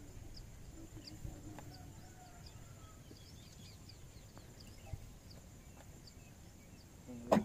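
Birds chirping faintly over a low outdoor background, with a faint steady high whine, and one sharp knock just before the end.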